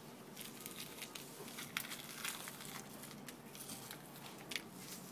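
Faint wet tearing and crackling as the stomach-cavity lining and organs of a quarter albacore tuna are pulled away from the flesh by hand, in scattered small clicks.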